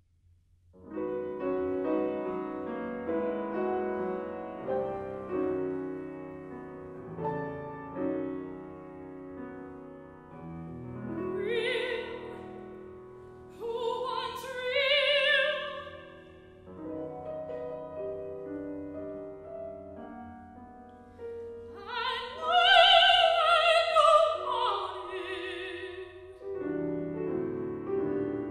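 Grand piano accompaniment with an operatic soprano singing. The piano comes in about a second in; the voice enters around the middle with wavering held notes, rests, then returns with louder, higher phrases near the end.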